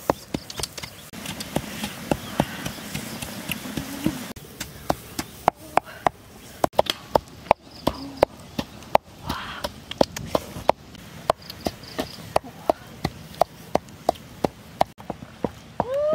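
Pestle pounding in a small mortar: sharp knocks repeating at a steady pace of about two to three a second.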